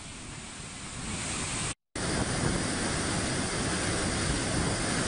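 Steady rush of floodwater churning out through a dam's open spillway gates. It builds over the first second or so and breaks off for a split second a little before two seconds in, then comes back louder and steady.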